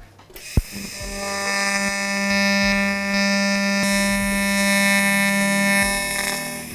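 TIG welding arc on titanium tube: a steady electric buzz on one fixed pitch. It starts with a sharp click under a second in, builds as the foot pedal brings up the current, and tapers off near the end as the pedal is eased back.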